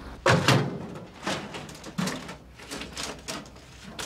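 Metal drawers of a steel desktop drawer unit being yanked open and shoved shut. A loud metal clatter comes about half a second in, followed by several lighter knocks and slides about a second apart.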